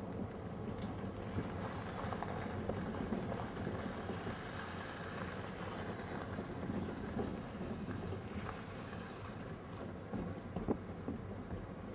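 Steady engine and road rumble of a moving vehicle, with wind rushing across the microphone and a few small knocks.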